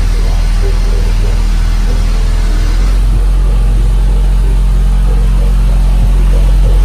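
Car-audio subwoofer playing loud, deep bass music, driven hard by a Taramps Trio 3000-watt amplifier; the bass notes change about three seconds in.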